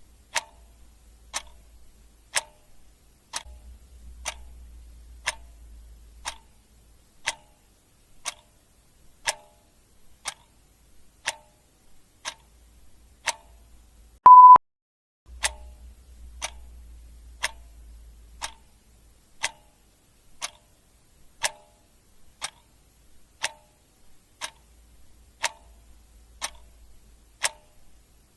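Clock ticking steadily, about one tick a second. About halfway through comes a single short, loud electronic beep at one pitch.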